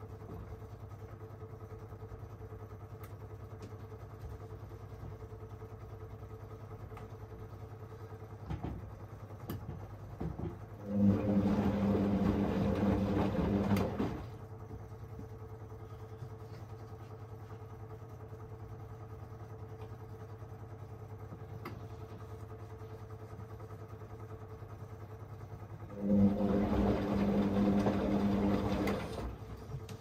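Whirlpool Aqualine AWM1860 washing machine in its soak, heat and main-wash stage: the drum motor runs in two spells of about three seconds, about fifteen seconds apart, turning the wash load. A low steady hum continues between the spells.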